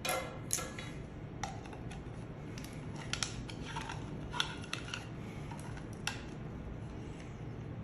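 Hard plastic parts of a soap dispenser clicking and knocking as the casing is handled and pried apart: a string of irregular sharp clicks, the loudest right at the start, over a steady low hum.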